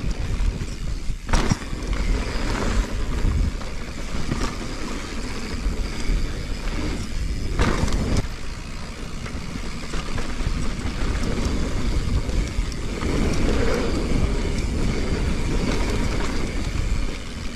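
Full-suspension mountain bike (Giant Reign 29er) descending a dry dirt and rock trail, heard from a camera on the bike: a steady rumble of tyres and rushing air, with a few sharp knocks and rattles as it hits bumps, about a second in and again around eight seconds in.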